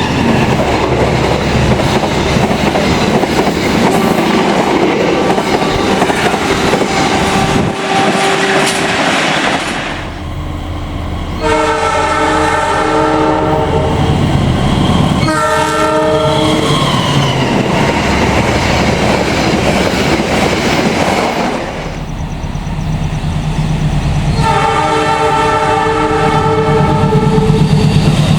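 Indonesian diesel locomotive horn sounding the semboyan 35 signal, a multi-note chord, over the rumble and clickety-clack of a running train. There is a long blast about a dozen seconds in, a short blast just after it, and another long blast near the end.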